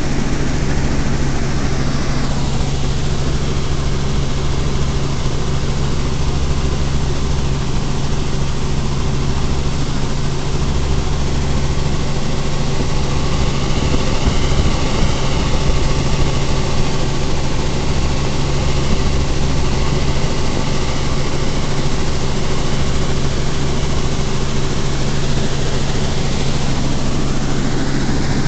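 Helicopter in flight heard from inside the cabin: a loud, steady drone of engine and rotor with a constant low hum.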